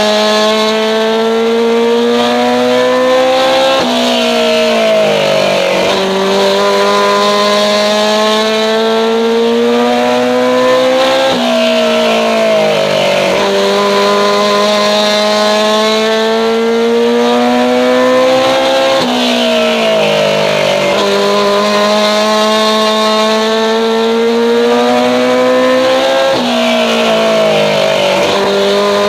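Mini super stock race car's engine heard from inside the cockpit at speed. The pitch climbs slowly down each straight, then drops sharply as the driver lifts for the turns and picks up again, about every seven to eight seconds, lap after lap.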